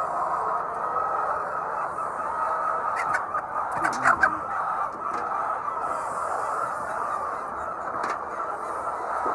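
A large flock of laying hens clucking together in a steady, dense chorus, with a few sharp clicks about three to four seconds in.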